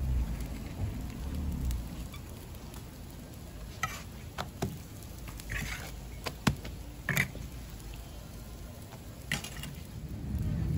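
Hotteok frying in oil on a flat griddle, a steady sizzle, with a handful of sharp metal clinks as the steel hotteok presses are handled on the griddle.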